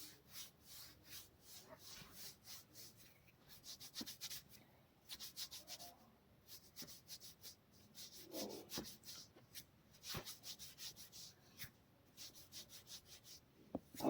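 Hands rubbing over skin in quick, repeated massage strokes, about three or four a second, with short pauses.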